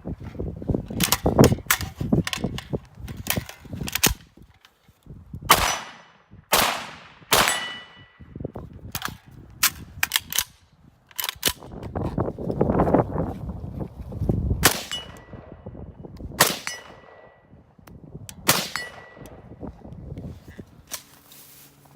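A VZ 58 rifle being handled: an irregular string of sharp metallic clicks and clanks, several ringing briefly, spread over the whole stretch.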